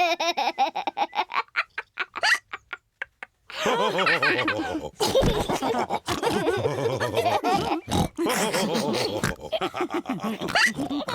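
Cartoon pig characters snorting and laughing: a quick run of snorts, a brief pause about two and a half seconds in, then several voices laughing together with loud snorts.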